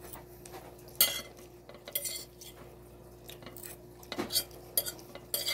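Metal cutlery scraping and clinking against plates and dishes as food is served: several short separate scrapes and clicks, the sharpest about a second in, over a faint steady hum.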